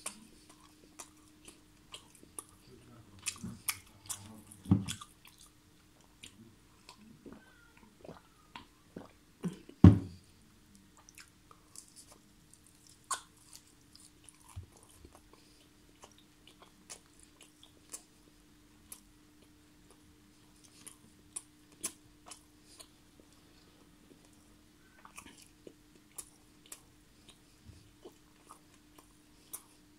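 Close-miked eating sounds of a man chewing tandoori chicken: a run of short wet smacks and clicks from the mouth, with a loud bite or knock about ten seconds in and another near five seconds.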